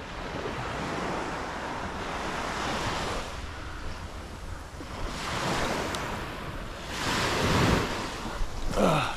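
Small surf waves washing onto the beach in repeated swells a couple of seconds apart, with wind buffeting the microphone. Near the end a brief rising tone cuts in.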